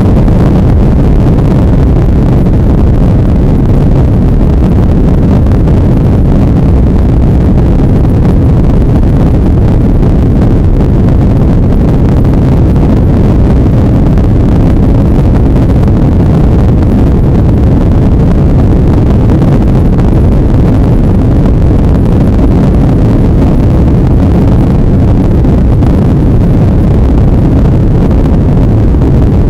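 Airbus A330 jet engines at takeoff thrust, heard from inside the cabin over the wing: a loud, steady low rumble through the takeoff roll, liftoff and initial climb.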